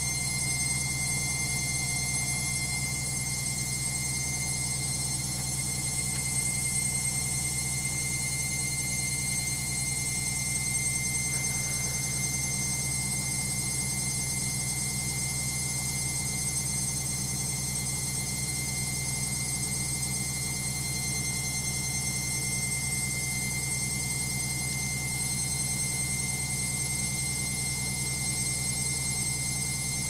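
LOGIK front-loading washing machine on its intermediate spin, the drum turning at a steady speed. The motor gives a steady low hum with steady high-pitched whining tones over it.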